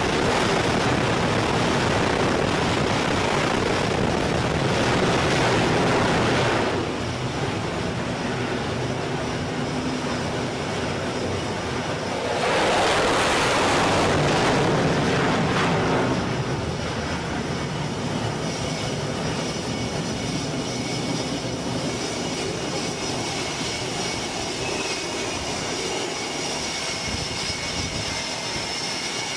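F/A-18 fighter jet engines running at high power on a carrier flight deck: a loud rushing roar that eases off about seven seconds in, a second loud surge of roughly four seconds around a catapult launch midway, then steadier engine noise with a thin high whine.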